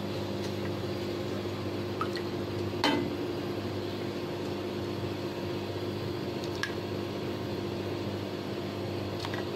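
Ghee being poured from a spoon onto a preheated non-stick pan, with a few light spoon clicks against the pan, over a steady low hum.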